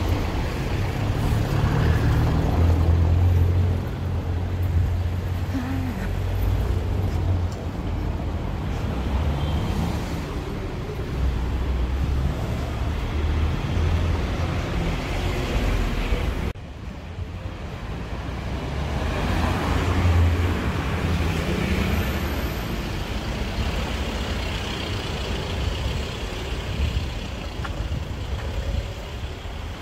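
Street traffic: cars and other vehicles passing, with a steady low rumble. The sound drops suddenly about halfway through, then carries on.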